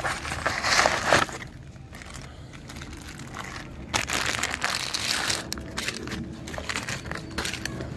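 Packaging crinkling and rustling as a delivery parcel is opened by hand. There is a loud rustle at the start, another about four seconds in, then a run of short crackles.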